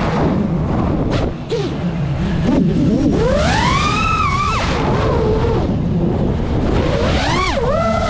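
FPV drone's brushless motors and propellers whining, the pitch sweeping up and falling away sharply with each throttle punch, over a steady low rumble of prop wash and wind on the onboard camera's microphone. The biggest climb in pitch comes about three to four and a half seconds in, with another quick dip and rise near the end.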